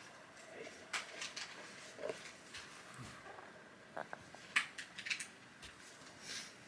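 A Chihuahua lying under a blanket makes a few faint clicks and brief soft sounds, with quiet in between.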